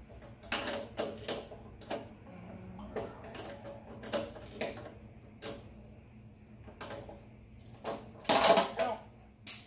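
Socket ratchet or wrench working a nut on the go-kart's solenoid mount: short metallic clicks and clinks in irregular strokes. A louder, longer burst of scuffing noise comes about eight seconds in.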